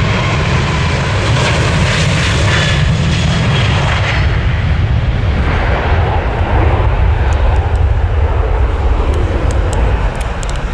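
Jet airliner take-off: a Boeing 737-800's CFM56-7B turbofans running at take-off power as it rolls past, lifts off and climbs away. A loud, deep rumble throughout, with a high hiss that fades about four seconds in, leaving the low rumble.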